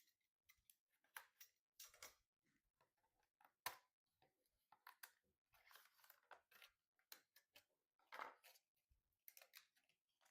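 Faint, irregular clicks, taps and short rustling scrapes of computer hardware being handled during a PC assembly, with near silence between them.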